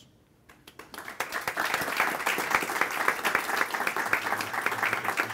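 Audience applauding: a room full of people clapping, starting about a second in after a brief hush.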